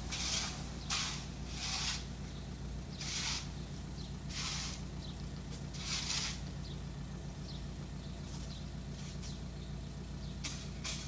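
Long-handled broom sweeping wet, sandy ground in a series of scratchy strokes about half a second long. Several strong strokes come in the first six seconds, then shorter, fainter ones. A steady low hum runs underneath.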